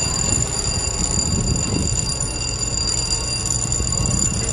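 Ballard Locks' warning alarm sounding steadily at a high pitch as the lock gates are about to open, over a steady low background rumble.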